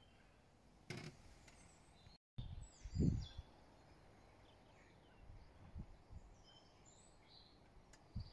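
Small birds chirping in the background over a quiet outdoor hush, with a few low thumps on the microphone, the loudest about three seconds in.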